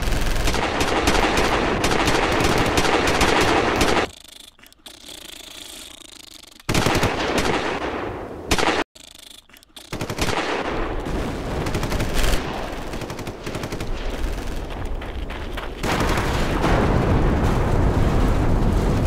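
Bursts of rapid automatic rifle fire, as film sound effects. A long burst, a quieter lull, a short burst, a brief break, then sustained heavy gunfire that swells louder near the end.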